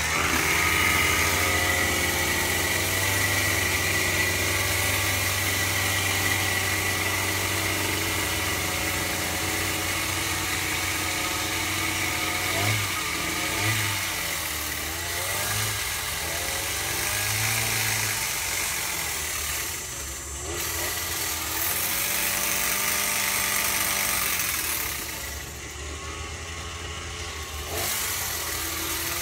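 Gas-powered hedge trimmer's small engine running at a steady idle, with a few short revs about halfway through. It drops quieter for a couple of seconds near the end.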